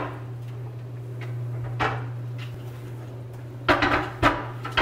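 Glass-topped, metal-framed coffee-pod storage drawers knocking and clattering as they are set down and pushed into place on a stone countertop. There is a light knock about two seconds in, then a cluster of louder knocks near the end.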